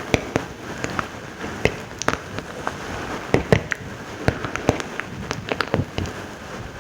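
ASMR mouth sounds: irregular sharp clicks and smacks of lips and tongue, several a second, over a faint hiss.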